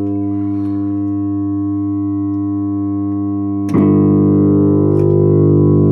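Electronic keyboard playing a loud, steady low buzzing tone with many overtones, imitating a 50 Hz transformer hum. A little over halfway through it suddenly gets louder and fuller.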